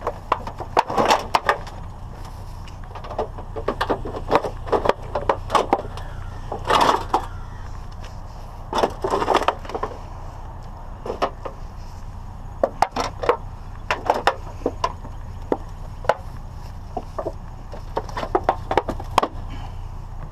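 Irregular knocks, clanks and cracks of scrap being handled and broken apart, some in short rattling clusters, over a steady low hum.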